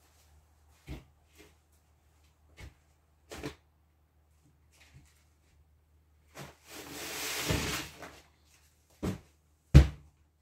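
Large OSB board being handled into place against a wall: scattered light knocks and bumps, a scraping slide lasting about a second, then a few sharp thuds near the end as the sheet is pushed flat against the wall.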